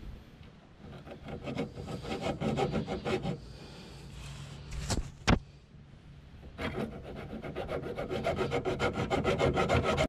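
Small handsaw cutting through a metal air-conditioning hard line in quick back-and-forth strokes, in two bouts: a short run of strokes, a pause with one sharp click, then a longer run that speeds up toward the end.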